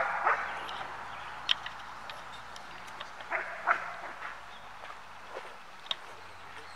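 A dog barking in short single barks: one at the start and two close together about three and a half seconds in, with a few fainter sharp snaps between.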